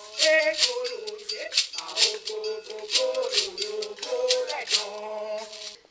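A bead-netted gourd rattle (shekere) shaken in a steady rhythm of about two to three strokes a second, accompanying a voice singing. Both stop just before the end.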